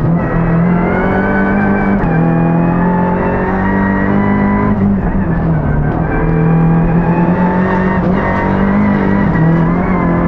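Peugeot 308 Racing Cup's turbocharged four-cylinder engine running hard, heard from inside the cabin. Its pitch dips briefly about two, five and eight seconds in and climbs back each time.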